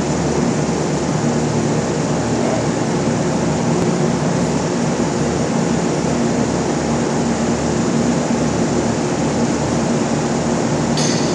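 Steady industrial machinery din on a steel fabrication shop floor: a constant low hum under an even rushing noise, with a brief metallic clink near the end.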